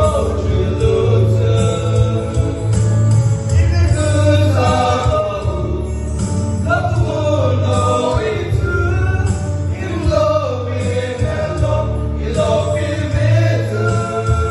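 Small group of men singing a gospel hymn together into microphones, over a recorded backing track with a steady bass.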